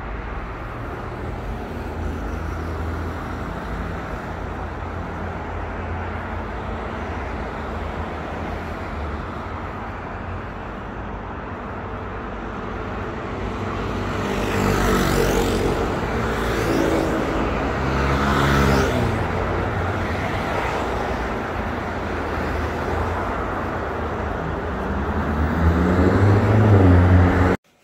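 Road traffic: a steady low rumble of vehicles, with engine pitch rising and falling in the middle as vehicles go by and an engine speeding up near the end before the sound cuts off suddenly.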